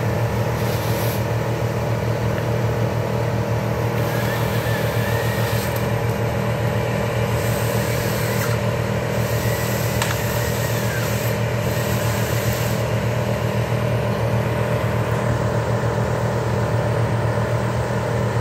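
A heavy machine's engine running steadily at a constant speed.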